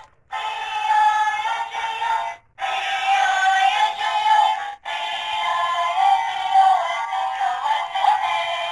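Battery-powered walking toy dog playing a tinny electronic song through its small built-in speaker, breaking off briefly three times between phrases.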